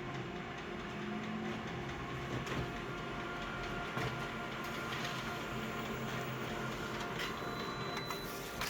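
Photocopier running a copy cycle: a steady mechanical whir and hum with a few soft clicks.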